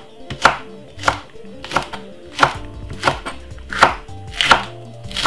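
Kitchen knife chopping spring onion on a wooden chopping board: about eight evenly spaced chops, roughly three every two seconds, each a sharp knock of the blade through the stalks onto the board.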